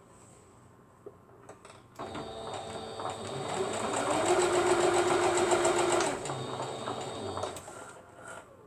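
Sewing machine stitching down the last fabric piece: a few light clicks, then the machine starts about two seconds in, runs up to full speed with a steady hum, slows about six seconds in and stops shortly before the end.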